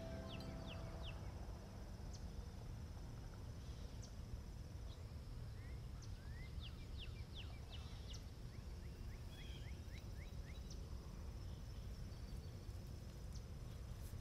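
Summer dawn outdoors: small birds chirping in short quick runs, over a steady high insect drone and a low steady rumble. The last notes of a Celtic harp ring out in the first second.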